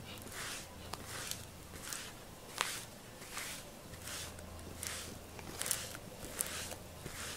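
Grooming glove stroking down a cat's fur in a steady series of soft swishes, about one and a half strokes a second. One sharp click about two and a half seconds in.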